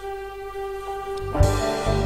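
Instrumental introduction of a song: a held chord. Then, about one and a half seconds in, the fuller band enters with low beats.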